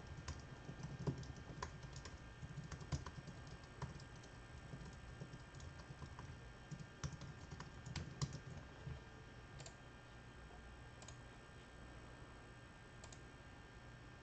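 Faint typing on a computer keyboard: a quick run of key clicks that thins out after about nine seconds to a few scattered clicks, over a low steady hum.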